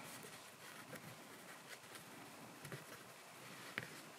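Faint rustling of a plush toy goose being squeezed and handled as a small egg is pushed inside it, with a light click near the end.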